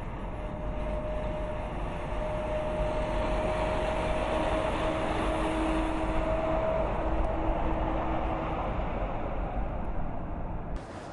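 Mercedes-Benz Actros semi-trailer truck driving past at road speed: a steady rush of engine and tyre noise with a faint whine that rises slightly in pitch, loudest about halfway through as the trailer goes by, then easing off. The sound changes abruptly just before the end.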